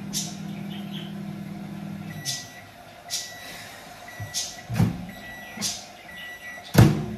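Microwave oven running with a low hum that stops about two seconds in, followed by five short high beeps, about one a second, signalling the end of its cycle. Short knocks and clatter from handling come in between, with a louder thump near the end.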